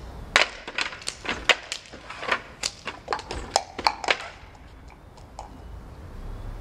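A quick, irregular run of sharp clicks and knocks, about fifteen in under four seconds, then a few fainter ones.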